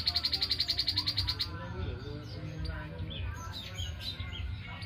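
Grey-headed babbler calling: a fast, even trill of about a dozen high notes a second that stops about a second and a half in, followed by scattered short high chirps.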